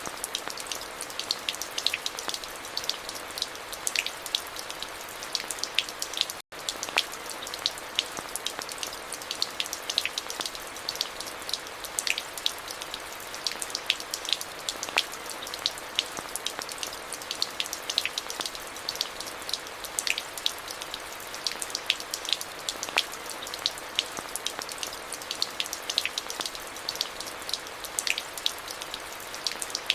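Steady rain, with many separate drops ticking sharply over an even hiss. All sound cuts out for an instant about six and a half seconds in.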